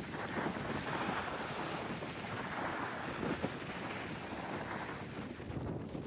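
Wind buffeting the microphone over the steady wash of sea waves, swelling and easing.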